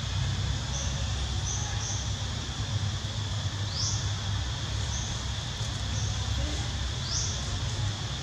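Outdoor ambience: a steady high insect drone over a low rumble, with short rising chirps about every three seconds and a few brief high peeps between them.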